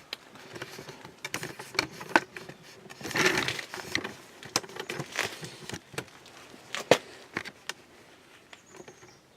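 A string of sharp clicks and knocks from handling around the van, with a burst of rustling about three seconds in; it dies down over the last couple of seconds.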